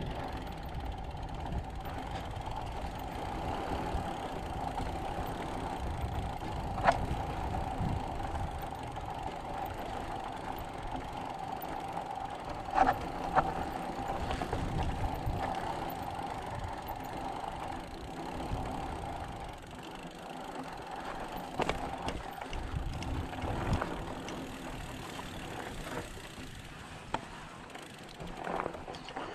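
Mountain bike's rear freehub buzzing steadily as the rider coasts, over a low rumble, with a few sharp knocks from the bike. The buzz fades about two-thirds of the way in.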